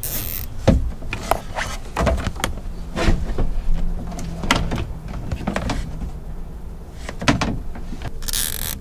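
Hands working a radar cable into a boat's wiring harness and securing it with nylon zip ties: scattered rustles and clicks of cable handling, with a short rasping zip right at the start and again near the end.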